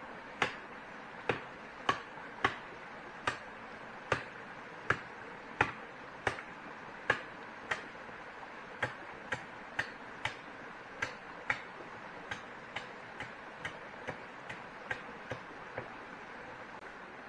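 A series of sharp knocks, about one and a half a second, each a hard strike, louder in the first half and lighter toward the end, over a steady background hiss.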